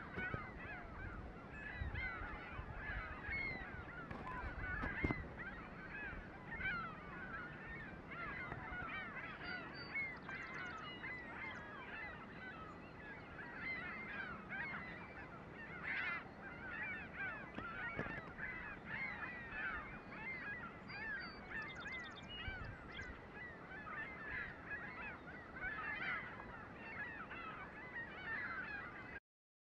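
A large flock of gulls calling, many short cries overlapping at once without a break, cutting off abruptly near the end.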